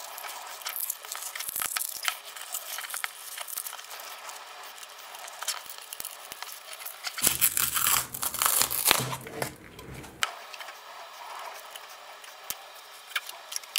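Peel ply and white breather fabric being pulled and torn off a freshly cured carbon-fibre part in its mould: continuous crinkling, rustling and tearing, loudest for a few seconds past the middle.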